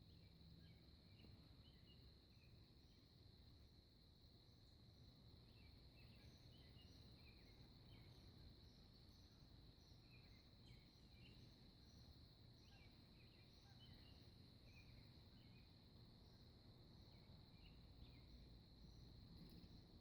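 Faint early-morning outdoor ambience: a steady high-pitched insect trill runs throughout, with many short, scattered bird chirps over it.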